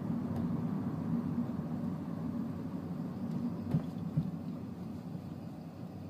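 Engine and road noise inside a manual MINI Cooper's cabin while driving, a steady low hum that slowly fades toward the end, with two short knocks a little past the middle.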